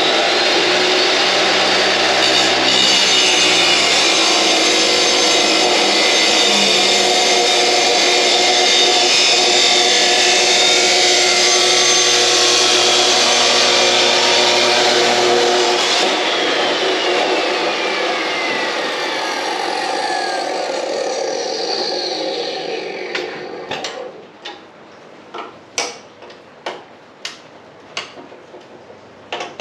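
Power saw running and cutting through metal intercooler tubing for about sixteen seconds, then switched off, its pitch falling as it winds down over several seconds. A few light taps and clinks follow near the end.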